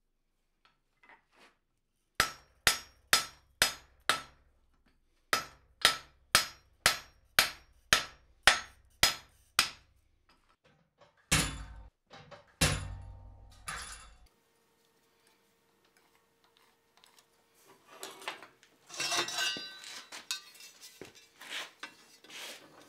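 Hand hammer blows on red-hot steel at the anvil, forging a bevel: five ringing strikes, a short pause, then about nine more at roughly two a second. A few seconds later come two heavier, deeper blows as a chisel held in tongs is driven into the hot block. Near the end there are light clinks and scraping of metal parts being handled.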